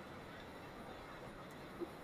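Faint, steady background hiss with one short, sharp click near the end.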